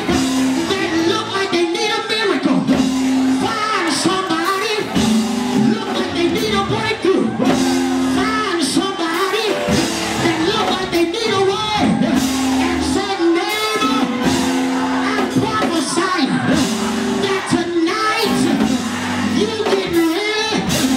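Gospel praise music with held keyboard chords, singing and shouts from the congregation.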